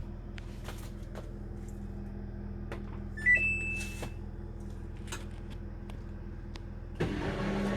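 Samsung washing machine: a steady low hum with scattered clicks, a short rising beep tune about three seconds in, then near the end a louder rushing sound with a stronger hum as the cycle starts running.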